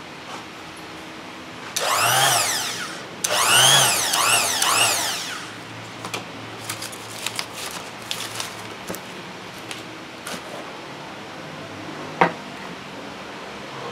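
Oxford OXFS-82 orbital sander switched on twice for a moment, its motor whirring up to speed and winding down each time, the second run coasting down more slowly. After that come light clicks and handling knocks, with one sharp knock near the end as the sander is set down on the board.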